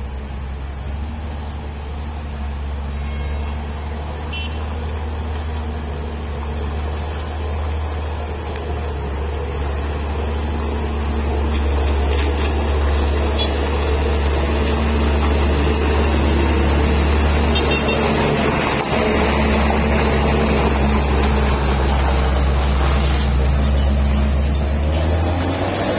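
Heavy diesel truck engines running as the trucks move slowly past at close range. The deep engine drone grows louder about halfway through as a large box truck comes right by.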